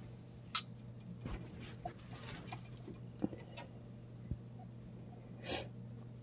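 Baby raccoons pawing and scratching at a door and a dangled string: scattered faint clicks and scrapes, with one short breathy puff about five and a half seconds in.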